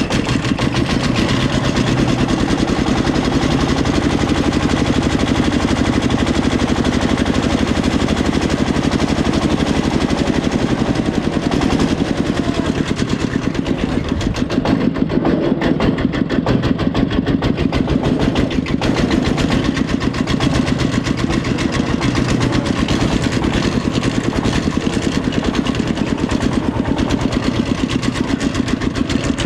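Diesel engine running steadily with a fast, even chugging beat.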